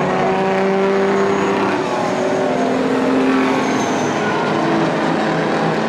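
Engines of a pack of mini big-rig race trucks running hard on a dirt oval, several engine notes overlapping, some holding steady while others rise and fall.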